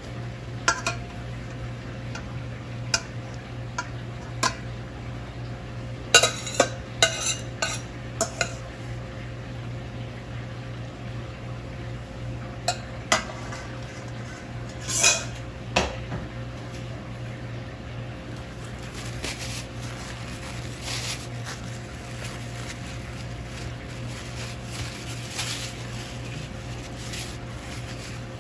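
A metal spoon clinking and scraping against a pot and a plate as cooked chicken adobo is served out. There are scattered sharp clinks, a quick run of them about six to eight seconds in, and softer scraping in the second half, over a steady low hum.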